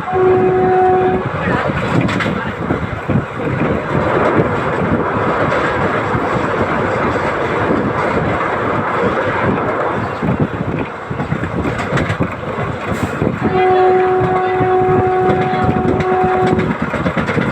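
ALCO WDM3A diesel-electric locomotive's 16-cylinder engine chugging steadily under load. Its horn sounds briefly at the start and again for about three seconds near the end.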